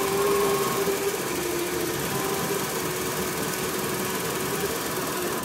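MerCruiser 350 MAG MPI marine V8 engine running steadily, heard up close in the open engine compartment, with a steady tone through it that sags slightly in pitch.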